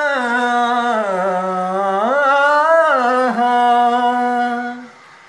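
A man singing solo with no instruments: one long drawn-out melismatic phrase that dips low, rises and wavers in pitch, then breaks off about five seconds in.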